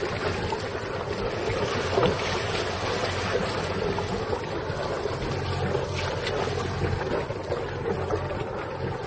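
Wind buffeting the microphone over the rush of water and a low engine hum from a boat under way.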